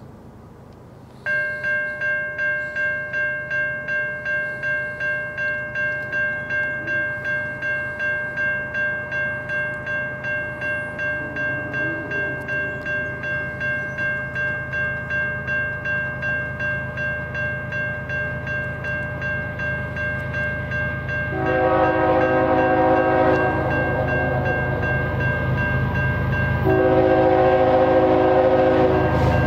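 Electronic grade-crossing bell starts ringing about a second in, a steady clanging tone pulsing about twice a second. Near the end the approaching CN ES44DC locomotive's air horn blows two long blasts over the bell.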